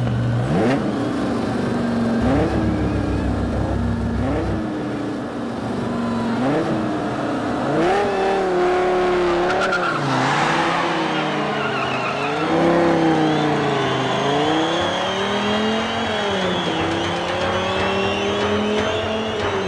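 Sports car engine revving up and down over and over as the car spins, with tyres squealing and skidding; the skid is loudest about halfway through.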